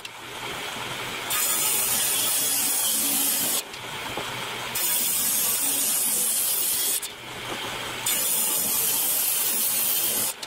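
Table saw ripping old wooden boards: the cutting noise comes in three long stretches, with the saw running more quietly between them.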